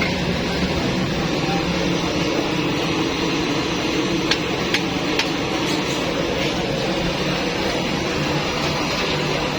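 Steady mechanical hum with a constant noise bed, broken by a few light clicks about halfway through.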